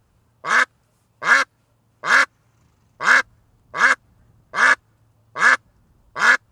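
A duck quacking eight times in a steady, evenly spaced series, a little under a second apart, each quack short.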